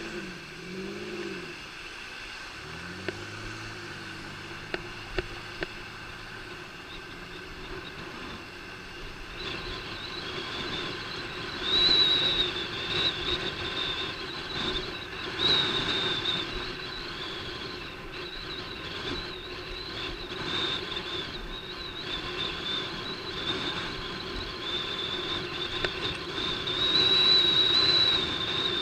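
Traffic and road noise heard from a moving bicycle, with a steady high whistle coming in about ten seconds in and a few louder swells as vehicles go by.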